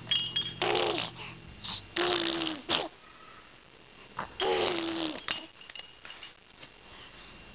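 A baby making breathy vocal noises: three short bursts, each a held, slightly falling voiced sound mixed with a rush of breath.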